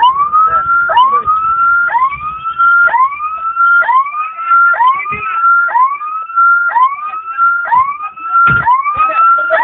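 Ambulance siren sounding in a repeating cycle of rising sweeps, about one a second, each climbing and levelling off before dropping back sharply.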